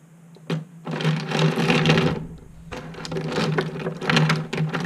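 Multiliner pens clattering and rattling against one another as a hand rummages through a pile of them, in two spells of dense clicking, over a steady low hum.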